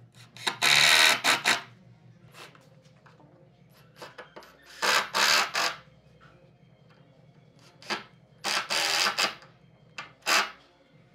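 Makita cordless impact driver driving screws into wood, in three runs of about a second each and a short fourth one near the end.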